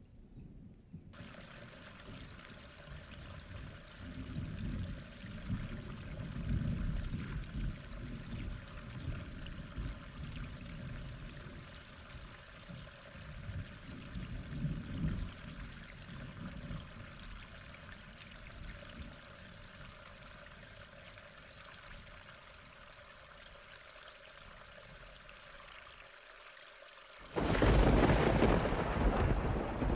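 Thunderstorm: steady rain hiss with low rolling rumbles of thunder, then near the end a sudden loud thunderclap, the loudest sound.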